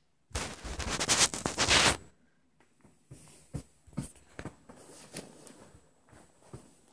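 A loud burst of rustling for about a second and a half, then a few faint taps and knocks.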